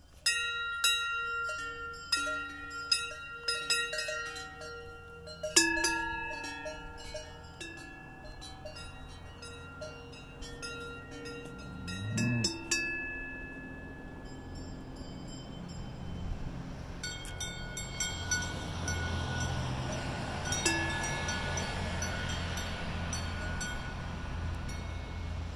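Large cowbells on the collars of standing cows clanking and ringing, several bells at different pitches struck irregularly as the cows move their heads. The strikes come thickly at first and thin out after about 13 seconds, over a steady low rumble.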